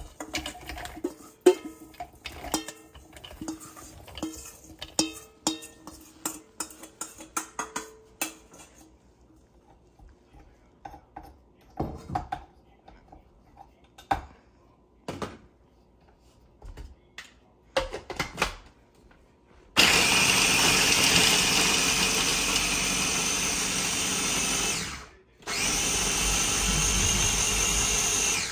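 A metal spoon scrapes and clinks against a steel pan as a dry roasted mix of nuts, makhana and seeds is tipped into a small food chopper's bowl, followed by scattered clicks. About twenty seconds in, the small electric food chopper starts grinding the mix with a loud steady motor noise, stops for a moment and runs again.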